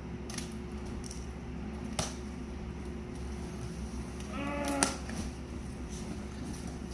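Prizes and packaging being handled: a few sharp clicks, and about four seconds in a short pitched squeak lasting about half a second that ends in a sharp click.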